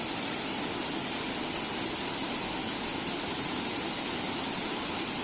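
Steady rushing of a waterfall, an even wash of water noise.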